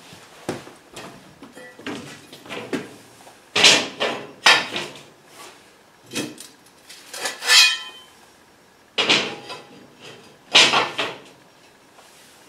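Laser-cut steel slats clanking against a perforated steel table top as they are handled and dropped into its tab-and-slot joints: a string of separate metal clanks and knocks, some ringing briefly.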